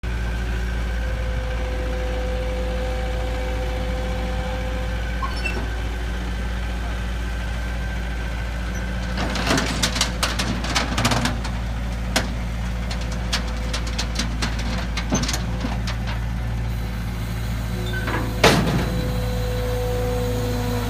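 New Holland L160 skid steer loader's diesel engine running steadily while the machine drives off a steel equipment trailer. A string of metal clanks comes from the trailer deck from about nine to sixteen seconds in, and one loud clank follows near the end.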